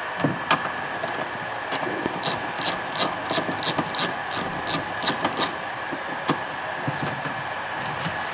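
Handling noise from work on hoses and fittings under a car's hood: light clicks and rubbing, with a run of sharp ticks, about three a second, in the middle. A faint steady high whine sits underneath.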